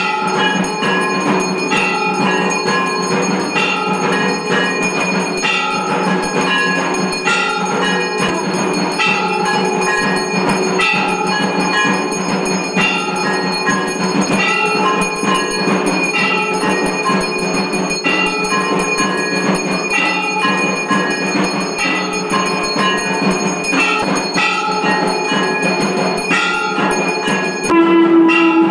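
Temple aarti bells clanging continuously, a brass hand bell ringing among them, with many overlapping metallic tones and a heavier stroke about once a second. A louder held tone joins near the end.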